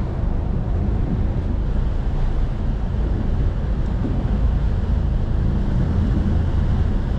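Boat engine running steadily as a small ferry boat moves under way, a constant low rumble mixed with wind rushing over the microphone.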